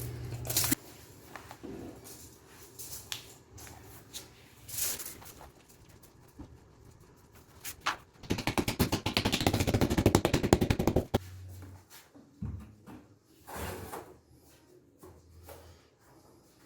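A saw cutting with rapid, even strokes for about three seconds, starting about eight seconds in, with scattered light taps and knocks of handling before and after.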